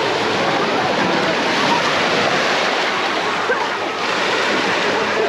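Sea surf washing onto a marble-chip beach as a steady hiss, with indistinct voices of people faintly mixed in.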